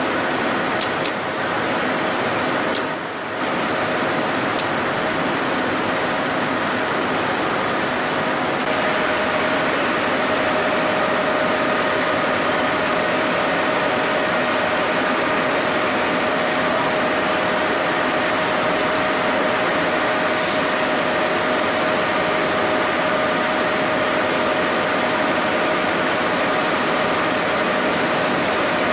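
Steady drone of a simplex roving frame and spinning-mill machinery running, with a thin steady whine that grows stronger about nine seconds in.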